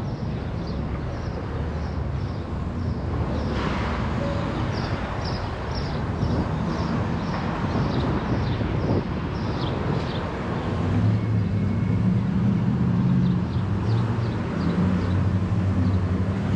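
City street traffic: a steady traffic rumble, with a vehicle engine humming low and growing louder in the last few seconds. A rapid series of high chirps repeats over it for much of the time.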